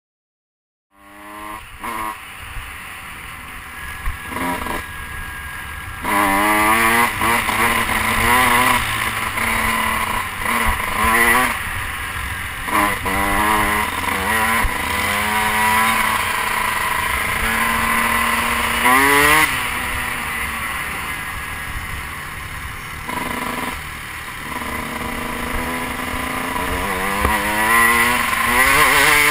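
Dirt bike engine heard from the rider's helmet camera, starting about a second in. It revs up and shifts repeatedly, its pitch climbing and dropping again and again over a steady rush of wind and road noise.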